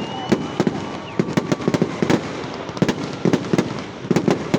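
Fireworks going off in a rapid, irregular string of sharp bangs and pops, many in quick succession.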